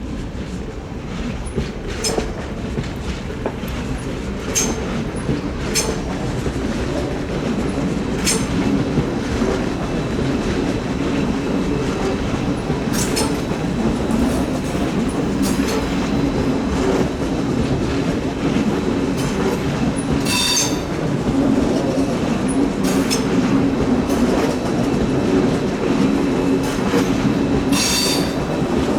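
A train running through a curve, with a steady rail rumble and wheel clatter. Short, high-pitched squeals of the wheel flanges grinding against the rail come about a dozen times, growing louder toward the end.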